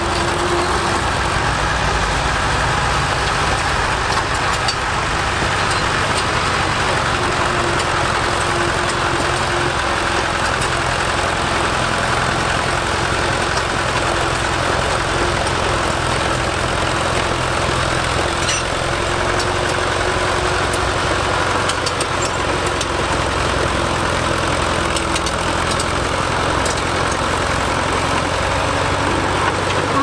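Fordson County crawler tractor's engine running steadily as the machine pushes soil with its dozer blade.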